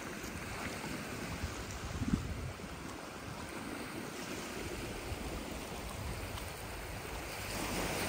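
Sea surf washing onto a beach, a steady noisy wash, with wind rumbling on the microphone.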